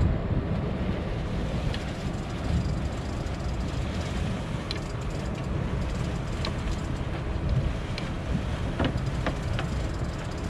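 Steady low rumble of a sport-fishing boat at sea: its engine running, with wind buffeting the microphone. A few faint ticks come through it.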